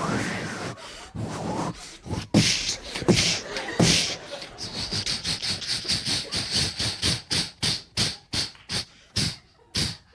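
A man imitating a steam train with his voice into a microphone: a run of rhythmic, hissing chuffs, about three or four a second, that slow and spread out near the end.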